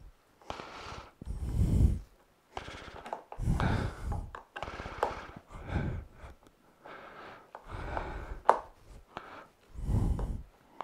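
Heavy breathing close to the microphone, a few irregular breaths, while a hand nut driver tightens screws into the plastic shop vacuum housing. The driver and plastic give small clicks and rubbing between the breaths.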